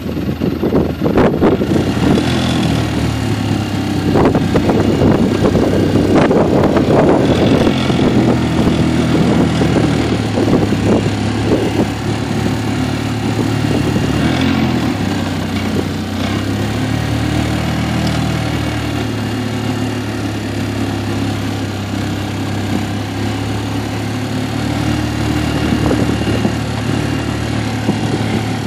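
Engine of the vehicle the recording is made from, running steadily with a low hum, heard close on board.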